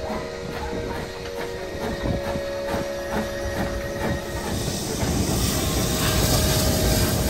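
Steam locomotive: a quick, regular knocking beat for the first four seconds or so, then a louder, steady rush of steam hiss and rumble from about five seconds in.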